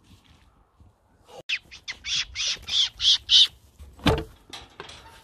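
A quick run of about eight short, high, harsh squeals over about two seconds, followed by a single sharp knock about four seconds in.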